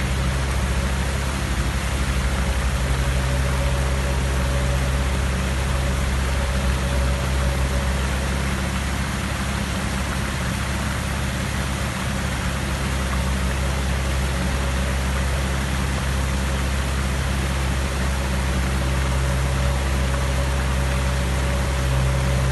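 Water from a ring fountain's many jets and tall central jet splashing steadily into its basin, over a steady low mechanical hum.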